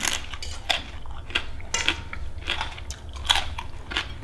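Close-up chewing of a mouthful of papaya salad: a run of irregular wet crunches, about three a second.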